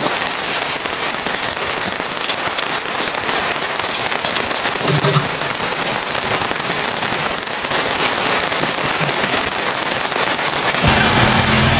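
Steady rain pattering on a surface, a dense crackling hiss of many small drop impacts. A low steady hum comes in near the end.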